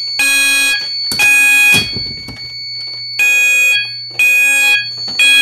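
Fire alarm horns blasting in the temporal-three evacuation pattern: half-second blasts about a second apart in groups of three, with a longer pause between groups. This is the system in alarm after a manual pull station was activated. A steady high tone carries on under the gaps.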